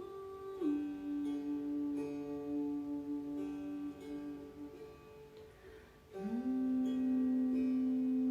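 Meditation music: long held tones over softly plucked strings. It thins out for a moment, then a new low tone slides up and holds about six seconds in.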